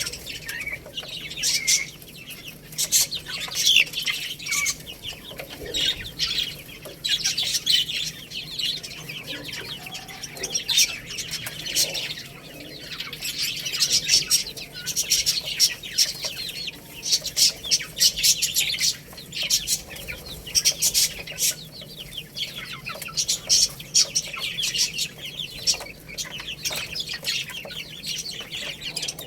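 A group of baby chicks peeping without pause, many short high-pitched chirps overlapping one another.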